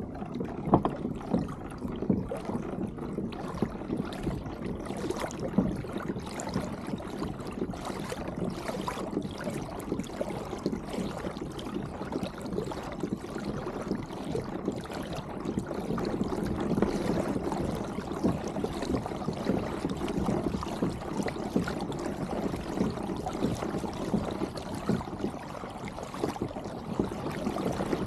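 Water lapping and gurgling along the hull of a kayak as it glides through calm water, heard right at the waterline: a steady wash with many small splashes.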